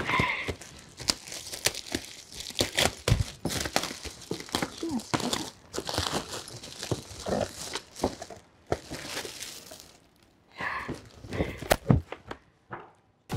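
Clear plastic packaging crinkling and tearing as a parcel is unwrapped by hand, in irregular crackles with a short lull about ten seconds in.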